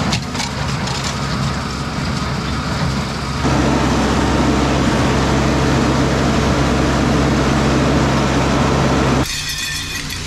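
Tractor engine running steadily under load, with a cluster of clicks or rattles in the first second. The sound changes abruptly twice, about three and a half seconds in and again near the end.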